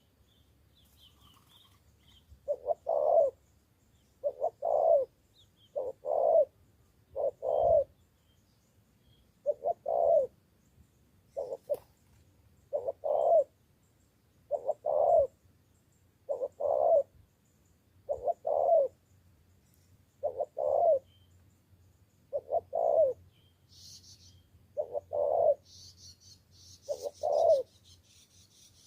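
Spotted dove cooing over and over: short phrases of two or three low coos, repeated about every two seconds. Faint high chirps of small birds come in near the end.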